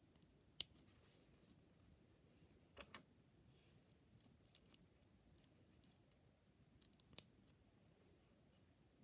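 Faint plastic clicks of LEGO Technic beams and pins being handled and fitted together: a sharp click about half a second in, a double click around three seconds, and another just after seven seconds, with a few softer ticks between.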